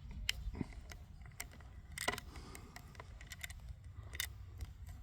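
Scattered sharp metallic clicks and clacks of a Zastava M922 .22 rifle being handled, its bolt and magazine worked to clear a case that failed to extract, the loudest click about two seconds in, over a low steady rumble.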